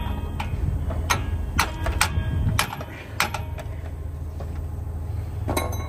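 Irregular sharp metal clinks and knocks from tools and parts being handled at a truck's wheel hub, heard over a steady low hum.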